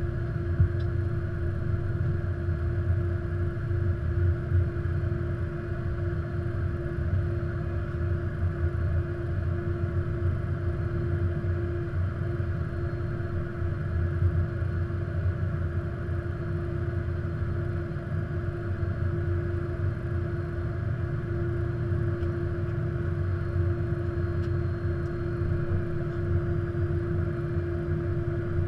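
Steady flight-deck noise inside an Airbus A330-200 cockpit during taxi-in to the stand: a constant low rumble with a steady hum running under it, unchanging throughout.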